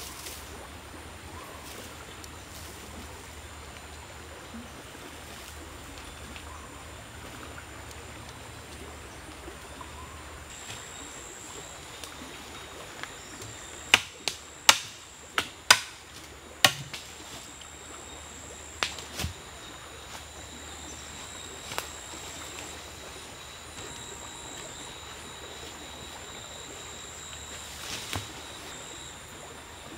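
A quick run of about six sharp wooden knocks about halfway through, then a few single knocks further apart, over steady forest ambience with insects droning at a high, even pitch.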